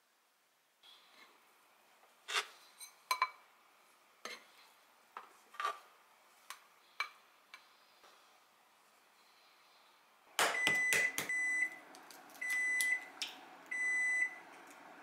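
Light clicks and taps of a rice paddle and bowl as cooked rice is scooped from a rice cooker. About ten seconds in come a few sharp knocks, then three electronic appliance beeps.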